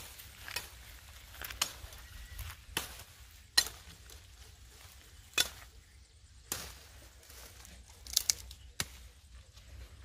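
Long wooden stick whacking into scrub and branches: about nine irregular sharp strikes, the loudest around three and a half seconds in.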